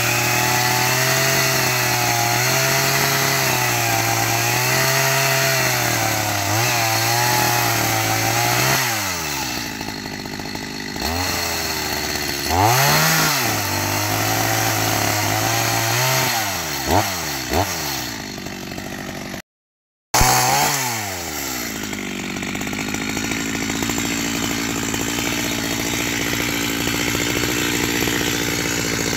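Two-stroke chainsaw cutting through fallen branches, its engine pitch wavering under load. About a third of the way in it drops back and revs up again in a few short blips. The sound cuts out for a moment about two-thirds in, and the saw then runs steadily again.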